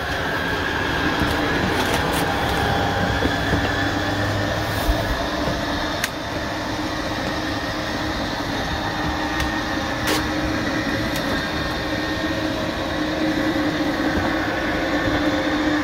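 Coachmen Prism motorhome's electric slide-out mechanism running steadily with a whine as the slide-out room extends outward, with a couple of faint clicks along the way.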